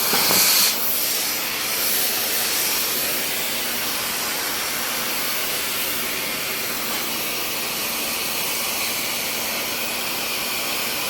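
Welding at work: a steady hiss, louder for the first second.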